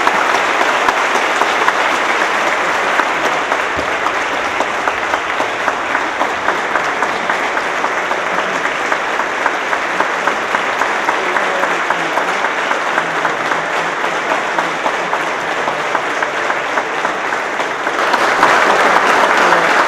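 Many people clapping in a sustained standing ovation from members of a parliamentary assembly, growing louder near the end.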